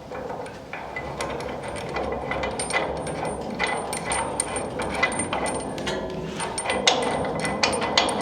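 Hand tools and metal hardware clicking and clinking irregularly while a panhard rod bracket is being bolted up, a quick run of small knocks several times a second.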